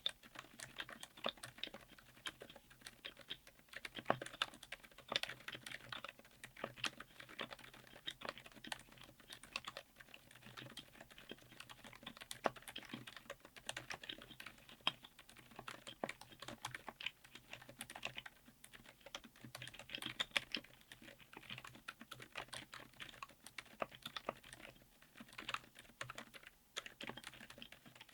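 Continuous typing on a mechanical keyboard with Outemu Silent Peach V3 silent linear switches on an FR4 plate in an aluminium case: a quiet, dense stream of damped keystrokes.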